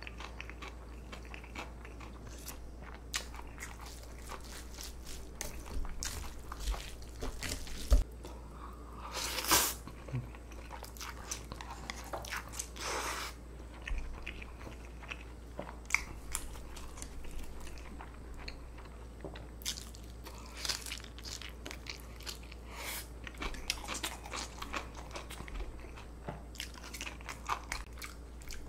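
Close-miked eating of spicy cold buckwheat noodles and kimchi: crunchy bites and chewing, with many small clicks and two longer, louder sounds about ten and thirteen seconds in, over a low steady hum.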